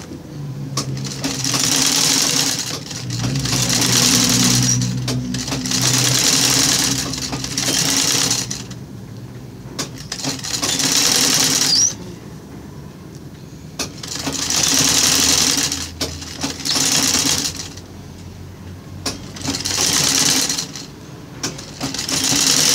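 Sewing machine running in short stop-and-start runs of a second or two, about nine in all, as it stitches gathered fabric scraps onto a sackcloth rug base. A low hum carries on through the pauses.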